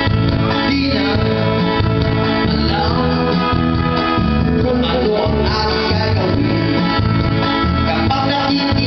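A man singing into a microphone over guitar-led backing music with a steady bass line.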